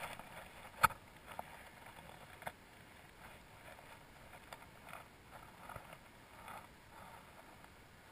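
Faint clicks and creaks from a zipline harness and its metal seat frame, with one sharper click about a second in and a few lighter ones after.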